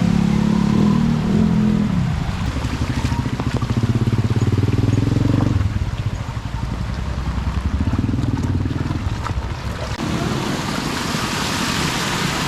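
A motor vehicle engine running, its low pulsing pitch dropping and rising in steps as the throttle changes, with a rushing hiss building up over the last couple of seconds.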